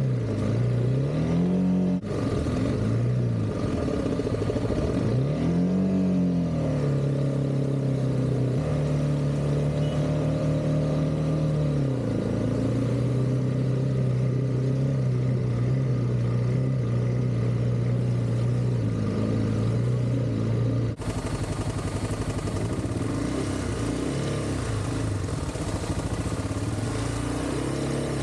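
Honda CRF300 Rally's single-cylinder engine pulling through deep mud, its pitch rising and falling twice early on as the throttle is worked, then holding steady. About two-thirds of the way through the sound changes abruptly to a rougher, noisier mix with the engine note less distinct.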